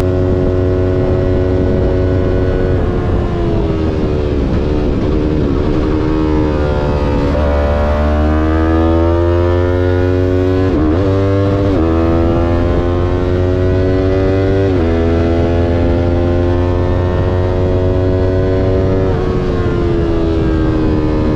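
Yamaha R3's parallel-twin engine under way on track. Its pitch falls as it slows a few seconds in, then climbs through the gears, with sudden drops at upshifts about halfway through and again a few seconds later, and falls again near the end. A steady low rumble runs underneath.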